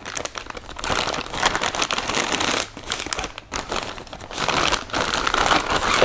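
Clear plastic wrapping crinkling and rustling as it is worked off a shotgun barrel by hand, on and off with short pauses.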